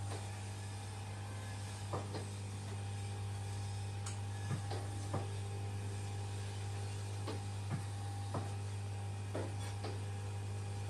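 Electric massage chair running: a steady motor hum, with irregular short knocks and clicks from its massage mechanism every second or so.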